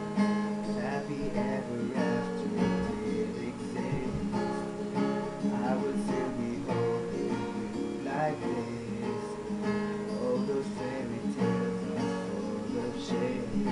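Acoustic guitar strumming chords steadily, with no singing.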